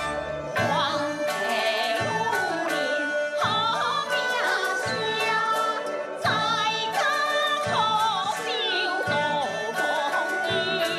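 Gezai opera accompaniment music: traditional Chinese melodic instruments playing a wavering, sliding melody over a regular beat struck about every second and a half.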